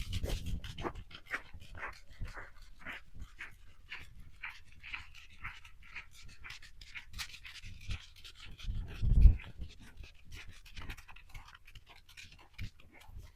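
A beagle panting in short repeated breaths, with one loud low bump about nine seconds in.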